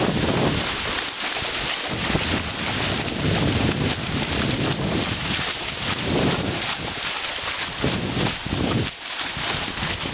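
Wind buffeting the microphone over water splashing around horses' legs as they wade through shallow sea, a rough noise that swells and dips.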